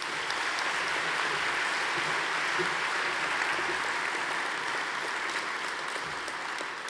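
Audience and panel applauding, a steady dense clapping that starts to fade near the end.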